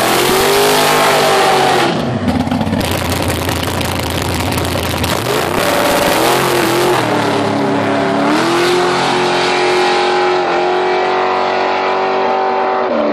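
Drag-racing dragster engine revving hard in short rises and falls, then opening up at full throttle about seven seconds in, the pitch climbing and then holding high as the car runs down the strip.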